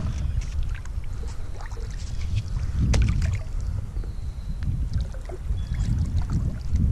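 Canoe paddling: the paddle pulling through the water in slow strokes about every three seconds, with drips and small splashes between, over a steady low rumble.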